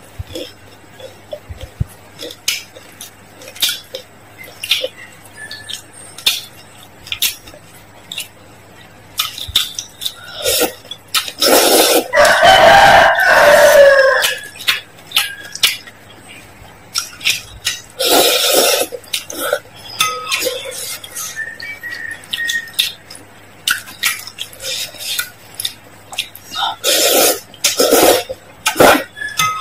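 Close-miked eating sounds: noodles slurped with chopsticks, the longest and loudest slurp about twelve seconds in and shorter ones around eighteen seconds and near the end. Between the slurps there are wet chewing, mouth clicks and chopsticks clinking against a glass bowl.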